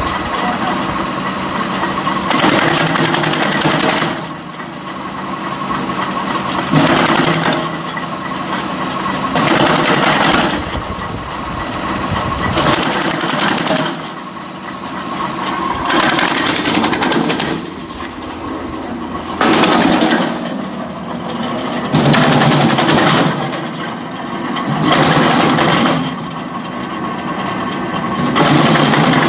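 Tractor-mounted, PTO-driven Remet R150 wood chopper running steadily, chopping seasoned spruce branches. About nine bursts of rapid loud cracking and chopping come one every two to three seconds, each lasting one to two seconds, over the steady running of the tractor engine and chopper.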